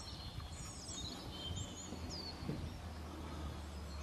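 Songbirds chirping, with a few short high calls and quick whistled glides in the first half or so, over a low steady rumble.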